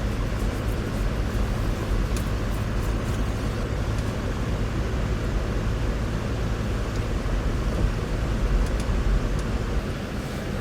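Force Gurkha 4x4 on the move, its diesel engine and tyres making a steady low drone of engine and road noise.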